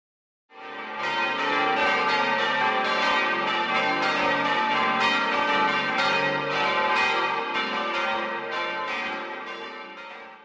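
Church bells ringing: several bells are struck over and over, their tones overlapping. The sound starts about half a second in and fades out over the last two or three seconds.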